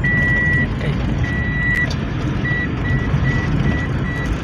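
A car's electronic warning beeper sounds one steady high tone over the engine and tyre rumble inside the moving car. It gives long beeps at first, then from about halfway in switches to short, quicker beeps a little over two a second.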